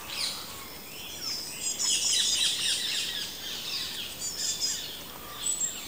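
Songbirds singing in woodland: a run of quick, high chirping phrases, busiest and loudest about two seconds in, then thinner calls, with a short high note near the end.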